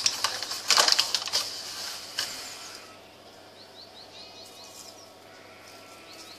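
Paper bag of caster sugar crinkling and rustling as sugar is shaken out into a hand, loud for the first couple of seconds and then fading. After that a small bird chirps in quick runs of short, falling notes, once in the middle and again near the end.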